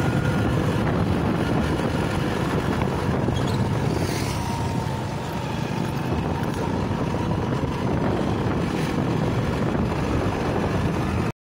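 Steady low rumble of a vehicle driving along a road, its engine and tyre noise running without a break.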